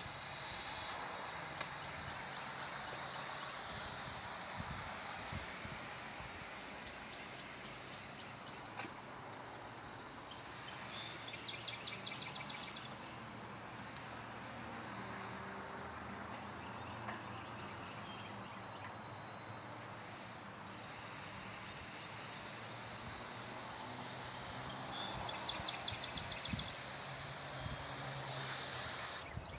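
Water spraying from a garden hose onto a concrete driveway, a steady hiss that swells and eases as the spray moves, lightly dampening the concrete before crack filler goes on. A bird gives a short trill twice, about a third of the way in and near the end.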